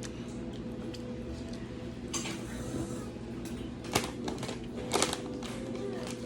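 Tableware on a table: utensils clicking against dishes, with sharp clicks about four and five seconds in, over a steady faint hum.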